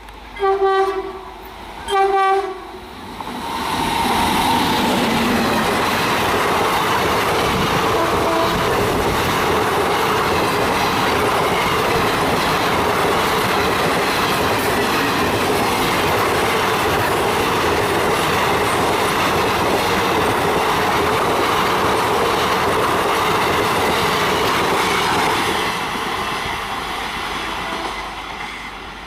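WAP-5 electric locomotive's horn giving two short blasts, then the Superfast Express passing at high speed: a loud, steady rush of wheels and coaches lasting about twenty seconds, which fades near the end.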